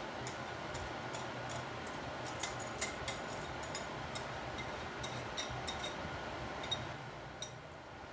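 Wire whisk clinking and scraping against a glass mixing bowl, a run of irregular light clicks, as a thick cocoa mixture is scraped out of it. A steady low hum sits underneath.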